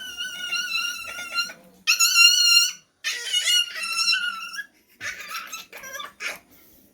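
Puppy whining in three long, high-pitched cries, the middle one loudest, followed by a few soft clicks and rustles.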